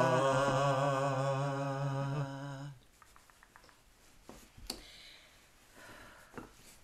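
A man's voice holding one long chanted note of the blessing after the Torah reading, ending sharply a little under three seconds in. Then faint rustling and a sharp click as the Torah mantle is lifted and slipped over the scroll.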